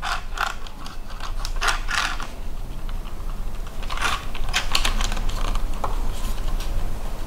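Light plastic clicks and rattles from a WPL WP-14 1/16-scale RC buggy being turned over and handled. They come in two clusters, one at the start and another about four seconds in.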